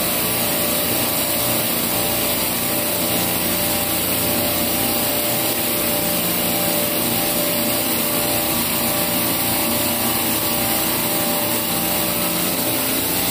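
Refrigeration rack compressors running: a steady, even machine drone with a constant hum.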